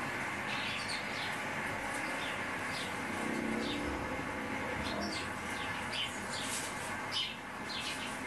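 House sparrows chirping from a bird video played on a television, heard through the TV's speakers: many short, separate chirps over a steady background hiss.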